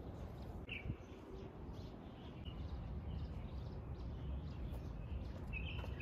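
Outdoor ambience with a steady low rumble, over which a small bird gives a few short high chirps, about a second in, again midway, and near the end.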